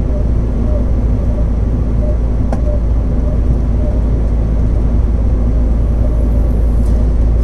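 Steady low rumble of a moving truck: engine drone and road noise.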